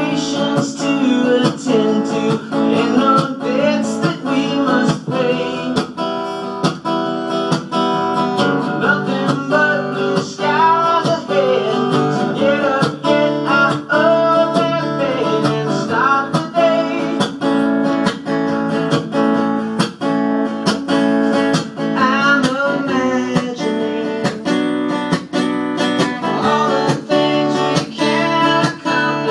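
Acoustic guitar strummed in a steady rhythm, a song played live.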